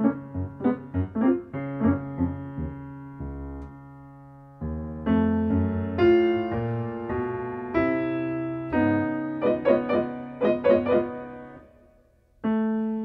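Piano music: quick notes at first, then slower ringing chords. It fades almost to nothing shortly before the end, and a new chord comes in.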